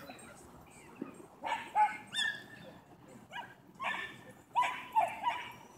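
Dogs play-barking and yipping while wrestling: about eight short, high-pitched barks in quick clusters, starting about a second and a half in.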